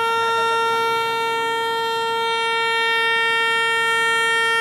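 Handheld compressed-air horn giving one long, steady blast at a single pitch: the start signal that sends the fishing boats off.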